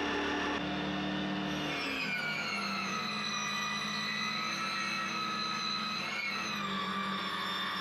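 7-inch electric circular saw running at full speed with a steady whine. The pitch drops a little about two seconds in and dips briefly around six seconds.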